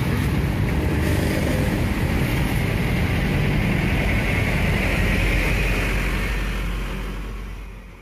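Busy road traffic, with car and motorcycle engines running in a steady low rumble, fading out near the end.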